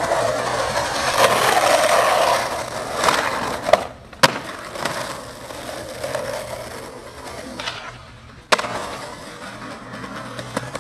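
Skateboard wheels rolling over asphalt, loudest in the first few seconds, with sharp clacks of the board hitting the ground about four seconds in and again past eight seconds.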